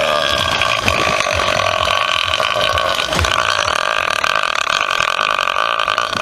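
A man's single long belch, held at a steady pitch for about six seconds with a rough, rattling texture.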